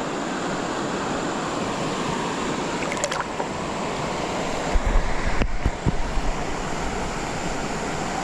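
Flowing creek water making a steady rushing noise, with a few short low thumps on the microphone about five seconds in.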